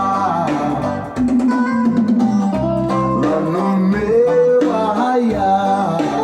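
Reggae music with plucked guitar and a steady bass line.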